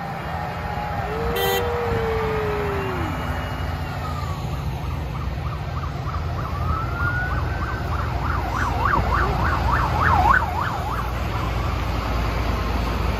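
Diesel farm tractors rumbling steadily as they drive past, while an emergency-vehicle siren wails in slow rises and falls and then switches to a rapid yelp about two-thirds of the way through.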